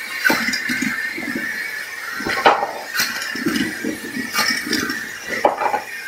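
Canister vacuum cleaner running with a steady whine while small batteries are sucked up, clattering through the metal wand and hose with several sharp clinks.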